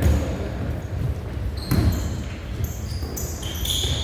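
A basketball bouncing on a gym floor during play: a low thud at the start and another near the middle. Through the second half come several short, high squeaks.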